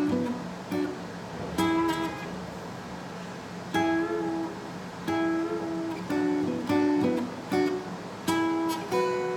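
Acoustic guitar played slowly, one phrase at a time: picked two-string double stops on the G and B strings at the 9th fret, bent and released, moving down to the 7th fret, with a single note at the 9th fret on the D string.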